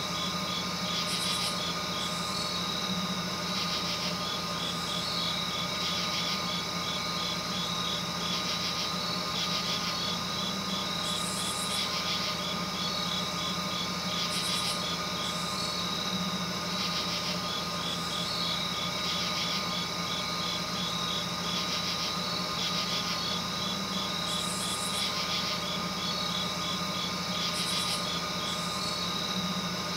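Night insects calling: a rapid, regular train of high chirps with separate higher buzzing trills about a second long coming and going, over a steady hum.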